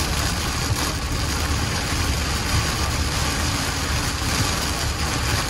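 Heavy rain hitting a moving car's windshield and body, over a steady low rumble of tyres on the wet highway, heard from inside the cabin.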